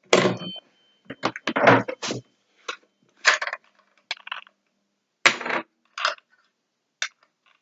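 Hard clinks, knocks and scrapes of an old telephone's small parts being handled, about a dozen separate short sounds with a brief metallic ring near the start.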